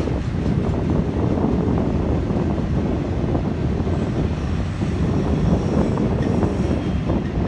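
Intermodal freight train cars rolling past at close range: a steady, even noise of steel wheels on the rails.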